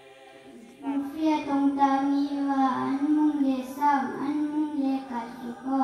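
A young girl singing solo and unaccompanied, beginning about a second in with long held notes.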